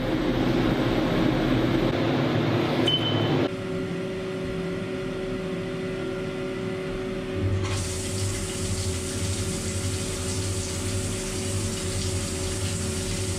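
CNC machining centre boring a cylinder of a Subaru EJ22 engine block to take new sleeves: after a loud rushing noise for the first three and a half seconds, the spindle runs with a steady hum. About eight seconds in, the flood coolant comes on with a loud spraying hiss over a pulsing low rumble.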